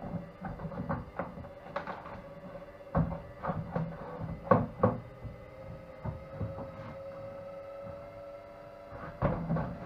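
Scattered plastic clicks and knocks from the housing parts of a car cooler box being handled and fitted together, over a steady faint hum.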